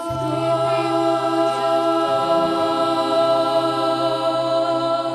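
Children's vocal ensemble holding a long sung note over a backing track, with a steady low note beneath the voices.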